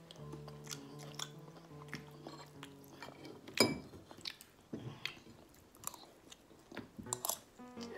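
A spoon and fork clinking and scraping on a ceramic plate of fried rice, with chewing. The loudest clink comes about three and a half seconds in. Soft background music plays under the first few seconds.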